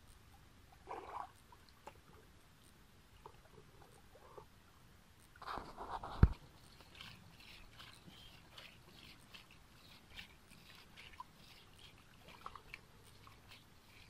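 Faint sloshing and squelching of shallow muddy water and mud as feet and hands move through it, with a louder splash about five and a half seconds in that ends in one sharp thump, then scattered small wet clicks.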